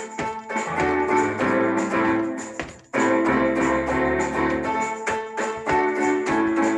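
Music played on a Casio electronic keyboard: chords over a steady beat. It breaks off for an instant about three seconds in, then picks straight up again.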